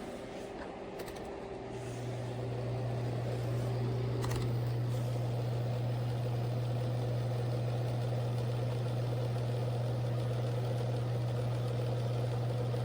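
Portable electric space heater running with a steady low hum, which swells louder about two seconds in and then holds steady.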